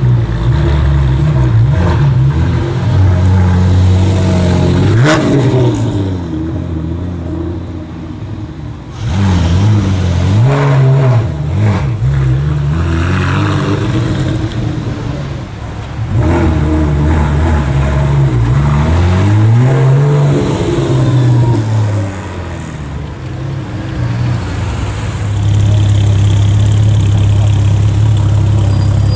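TechArt Porsche Cayman GT Sport's tuned 3.8-litre flat-six, through a loud exhaust: revved and accelerating several times, its pitch climbing and falling back, then settling into a steady idle near the end.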